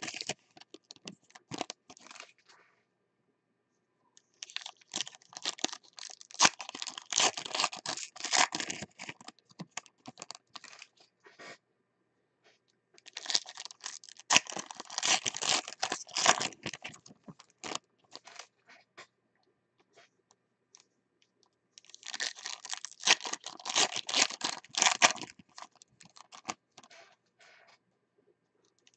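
Football trading card pack wrappers being torn open and crinkled by hand, in three bouts of crackly tearing a few seconds each with pauses between.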